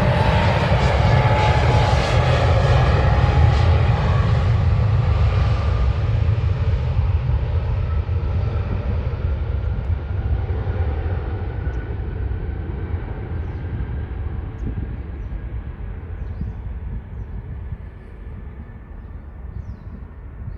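Jet airliner passing close by and receding. Its loud engine rumble and whine fade steadily, the higher tones falling slightly in pitch and dying away first.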